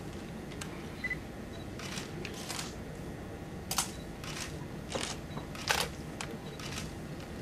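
Camera shutters clicking about nine times at irregular intervals as photographs are taken of a decoration being pinned on. A few faint short high beeps are mixed in.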